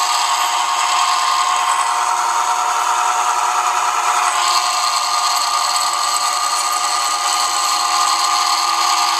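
Milling machine running a shop-made cog-tooth cutter through a light scratch pass on a belt cog wheel blank: a steady whine of several tones over a hiss, whose pitch changes about four and a half seconds in.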